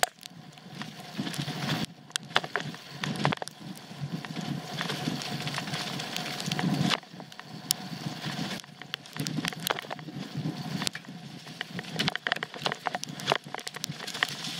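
Trek Full Stache 8 mountain bike riding over a dirt trail: tyres rolling and crunching over dirt and leaf litter, with many rattles and clicks from the bike over bumps. The noise dips briefly a few times.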